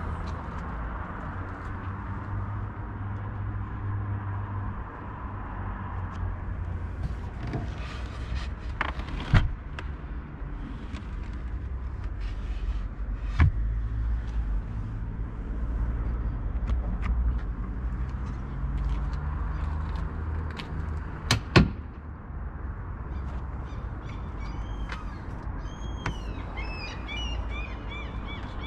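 Steady low outdoor rumble broken by a few sharp knocks and clicks, with birds chirping near the end.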